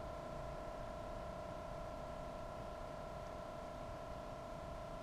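Electronic tones from a psychoacoustic sound installation: three steady pitches held together as a faint, sustained chord over background noise.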